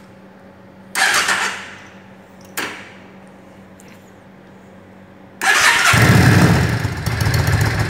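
Yamaha cruiser motorcycle's V-twin engine being cold-started: two short bursts about one and two and a half seconds in, then about five seconds in it cranks, catches and keeps running.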